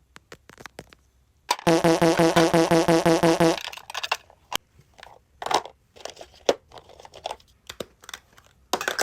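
Small clicks and taps of objects being handled, broken by an edited-in sound effect about a second and a half in: a loud buzzy tone pulsing about five times a second for two seconds. More scattered clicks and knocks follow.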